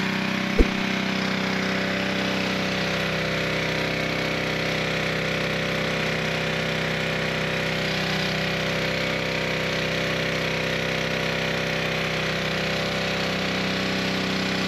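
Gas pressure washer running steadily, its small engine humming under the hiss of the spray, with one sharp knock about half a second in.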